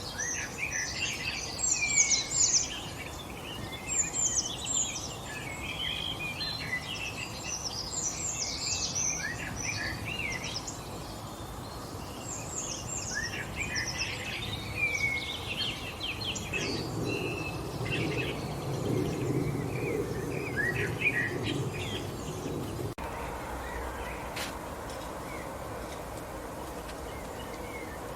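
Several small songbirds chirping and singing in quick, overlapping phrases over steady outdoor background noise. The birdsong stops abruptly about three-quarters of the way through, leaving only the background hiss.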